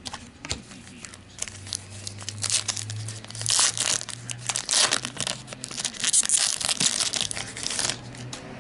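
A foil trading card pack being torn open and crinkled by hand. The crackly rustle builds about a second and a half in, is loudest through the middle and latter part, and stops just before the end.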